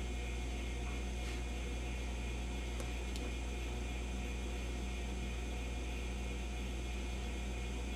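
Steady low mains hum with hiss from a just-switched-on Admiral 24A12 vintage tube television as it warms up, before its audio comes on. Two faint ticks come about three seconds in.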